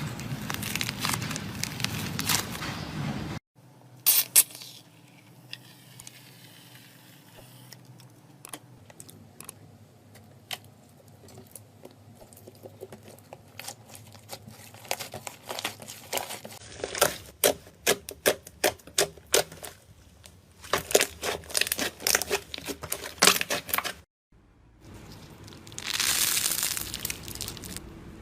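Slime being squished and pressed by hand, giving runs of sticky pops, clicks and crackles. The audio breaks off abruptly twice, about three and a half seconds in and again near the end.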